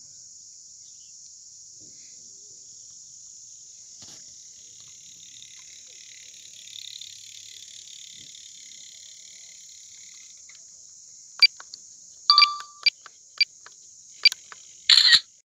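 Steady high-pitched drone of cicadas, swelling slightly about halfway through. In the last few seconds a run of about six sharp clicks comes in; the last one, near the very end, is the longest and loudest.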